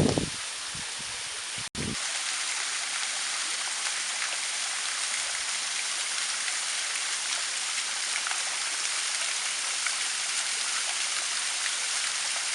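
Waterfall water rushing in a steady, dense hiss, with a brief low thump at the start and a momentary break just before two seconds in.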